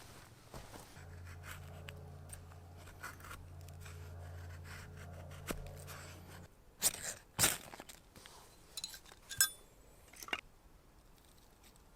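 Fire-lighting preparation by hand: a few sharp scrapes and snaps, with one ringing metallic clink, over a steady low hum that stops about six and a half seconds in.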